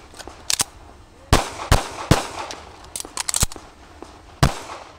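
Semi-automatic pistol being fired: three quick shots about 0.4 s apart a little over a second in, and a fourth near the end, with lighter sharp clicks in between.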